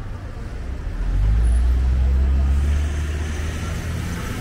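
A car engine running close by: a low hum that swells about a second in and eases off near three seconds, over street traffic noise.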